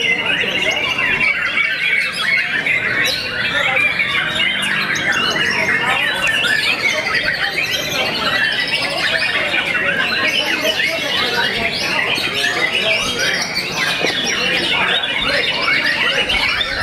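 Several white-rumped shamas singing at once: a dense, unbroken tangle of rapid whistled notes, trills and gliding calls.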